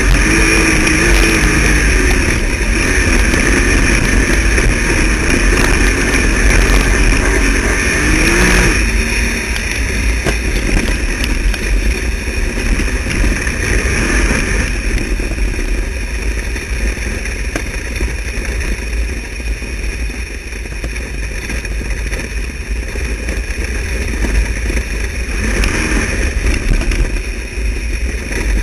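Wingless sprint car's engine heard from its own onboard camera at speed on a dirt oval, its pitch wavering up and down with the throttle through the turns, then easing back about nine seconds in. Steady wind rumble on the microphone throughout.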